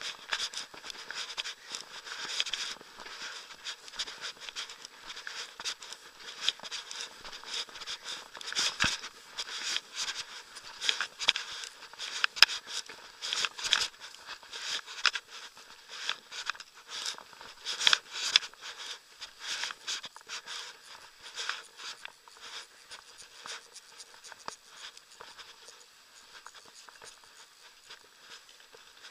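Close, irregular rustling and scratching of grass and weeds brushing against a body-worn action camera while walking through tall vegetation, thinning out over the last several seconds.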